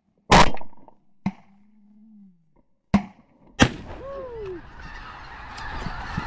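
Four shotgun shots over the first four seconds, the first the loudest. Then a large flock of snow geese calls overhead, a dense chorus of honks.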